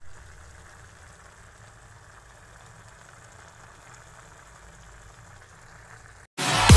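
Pork belly and pickled mustard greens simmering in a pan, the braising sauce bubbling with a faint, steady sound. Near the end it cuts off and loud electronic dance music starts.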